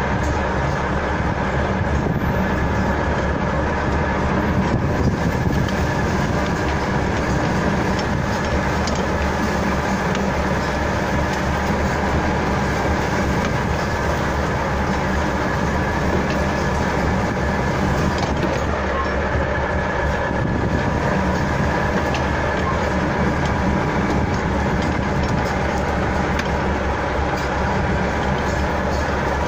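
Panhard AML-60 armoured car driving, heard from inside the vehicle: its air-cooled flat-four petrol engine runs steadily under load with a constant drivetrain whine and mechanical rattle.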